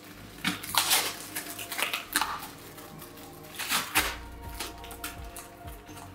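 Cardboard postal parcel being opened by hand: packing tape and wrapping ripped and crinkled in several short bursts, with the box knocked against the table.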